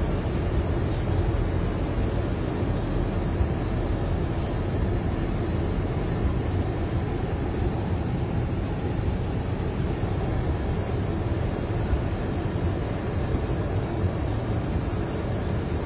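Steady low rumble and hiss heard from inside a car's cabin as it drives through floodwater on the road.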